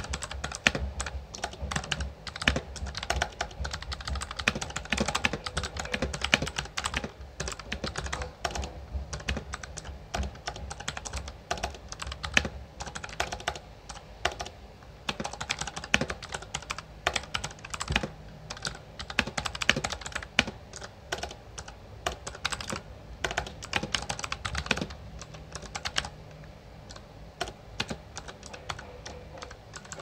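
Typing on an A4Tech Bloody B820R mechanical keyboard with clicky blue switches: a dense, uneven stream of sharp key clicks.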